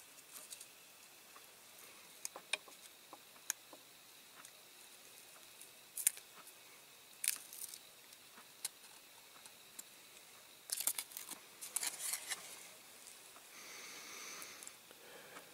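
Faint scattered clicks of metal tweezers and short crinkling rustles of masking tape and paper being peeled off a small diecast model car body, with a busier flurry of rustling near the end.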